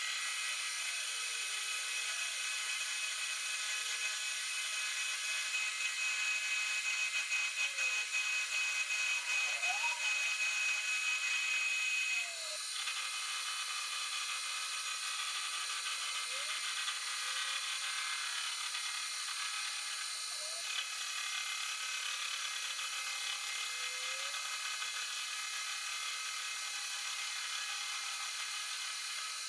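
Metal lathe running, its cutting tool turning down a metal workpiece spinning in the chuck: a steady high whine and cutting hiss, with a few short squeaks that slide up or down in pitch. About twelve seconds in the sound changes abruptly and becomes slightly quieter.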